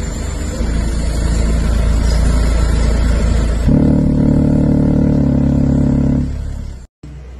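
Two Ground Zero Nuclear GZNW-12XMAX 12-inch car subwoofers playing very loud, deep bass: a steady low rumble for the first three and a half seconds, then a higher bass note that shifts pitch once. It fades and then cuts off abruptly near the end.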